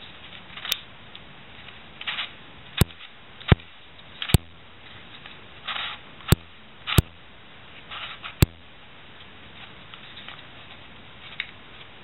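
Plastic Latch Pyraminx twisty puzzle being turned by hand: about seven sharp plastic clicks, spread irregularly, as its pieces are twisted, with softer scraping and rustling of the pieces sliding between them. A steady hiss runs underneath.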